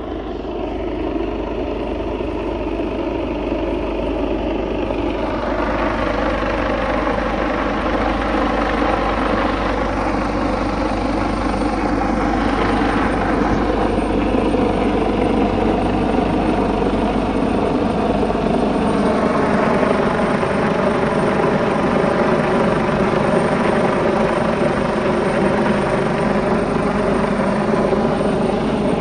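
Helicopter flying low overhead: a steady rotor and engine drone whose pitch slowly rises and falls as it moves, growing louder over the first few seconds.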